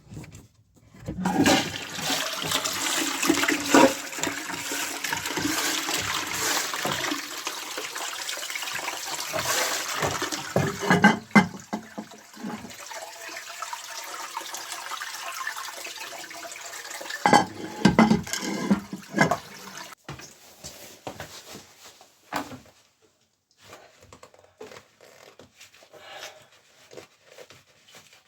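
A toilet being flushed: a loud rush of water starting about a second in, easing off after about ten seconds into a quieter flow that fades out, with a few knocks and clunks along the way.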